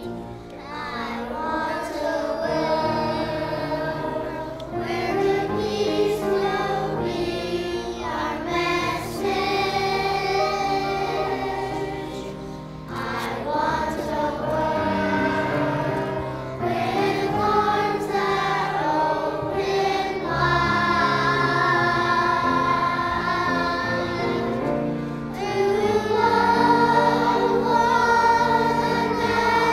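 Children's choir singing together in long, held phrases, with brief breaks between them.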